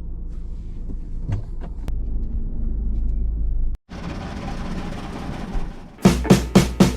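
Steady low rumble of a car on the road, with a few light clicks, cutting off abruptly about four seconds in. A steady rushing noise follows, and near the end music with sharp drum hits begins.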